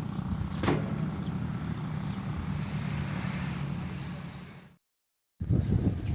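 An engine running steadily with a low hum and one sharp click about a second in; it fades out, the sound cuts to silence, and a louder, choppy noise starts just before the end.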